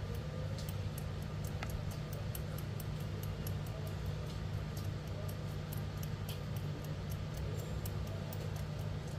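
Light, quick ticks, several a second and unevenly spaced, of a reversed No. 11 blade scraping glue off the CPU pads of a phone logic board, over a steady low hum.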